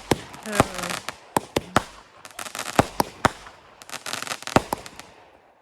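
Consumer fireworks going off: a rapid string of sharp bangs and crackling, densest in the middle, dying away near the end.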